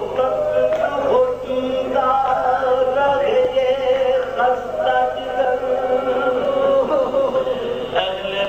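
Urdu marsiya, an elegy for the martyrs of Karbala, chanted by a male voice in long, held melodic lines.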